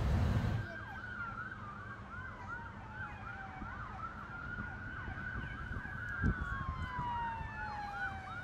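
Emergency vehicle sirens, two at once: one in a fast yelp of about three sweeps a second, the other a slow wail that falls and then rises again. A low rumbling noise cuts off about half a second in, and there is a single low thump about six seconds in.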